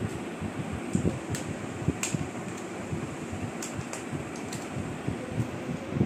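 Steady electric fan noise, with a few small sharp plastic clicks as a toy car's remote control is handled.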